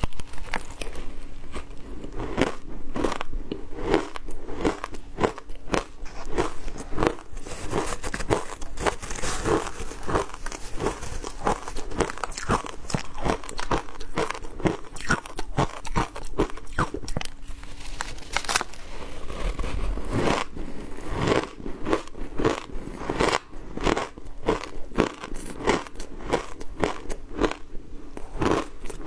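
Shaved ice dusted with matcha powder crunching and crackling as it is bitten and chewed, many crunches a second without a break.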